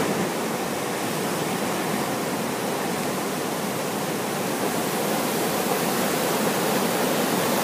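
Ocean waves breaking and whitewater rushing toward shore: a steady, even wash of noise.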